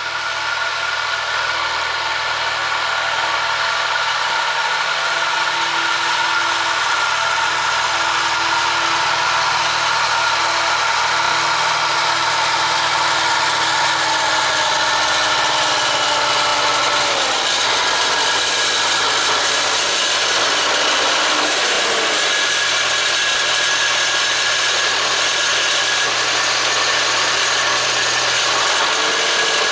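Zetor 7011 tractor's four-cylinder diesel engine running steadily under load while plowing snow. Its engine speed drops and shifts a few times in the second half.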